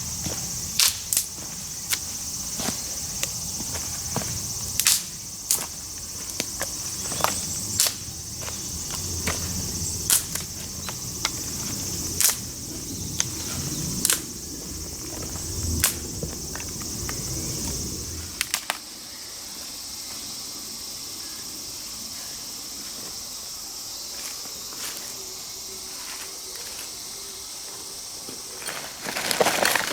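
Steady high insect chirring with repeated sharp cracks and snaps scattered every second or two, and a low rumble that stops about two-thirds of the way through.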